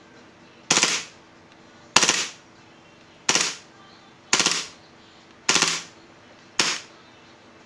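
KJ Works KP-13 gas blowback airsoft pistol firing six single shots, spaced about a second apart.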